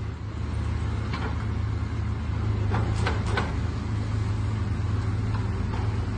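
Hydraulic excavator's diesel engine running steadily as it demolishes a building, with a few sharp knocks around the middle.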